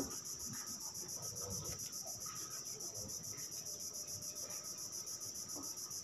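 Insects chirping steadily, a fast, even, high-pitched pulsing.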